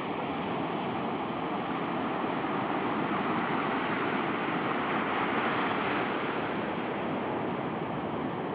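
Sea surf breaking and washing on the shore, with wind on the microphone: a steady rushing noise.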